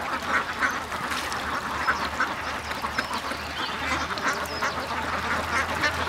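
A large flock of domestic ducks quacking, with many short calls overlapping continuously.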